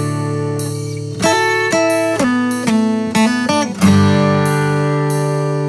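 Background music: acoustic guitar strumming chords, each left ringing before the next strum, with a few chord changes.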